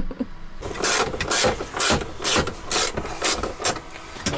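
Hand-tool work on a boat's battery wiring: a run of short sharp strokes, about two a second, starting about half a second in.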